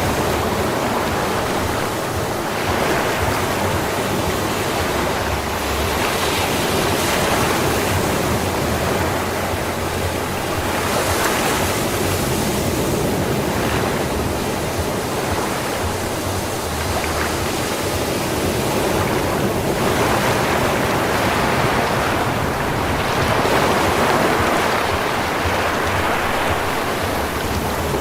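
Sea waves breaking and washing on a sandy beach: a steady surf hiss that swells and eases every few seconds.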